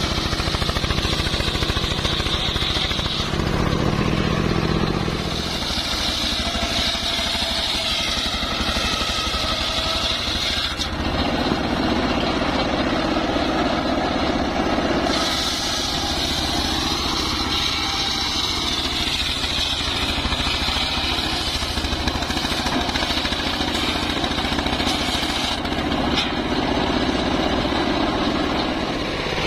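Homemade engine-driven circular sawmill running steadily while its blade saws through an old mahogany log. The high cutting whine changes abruptly several times as the blade goes into and out of the wood.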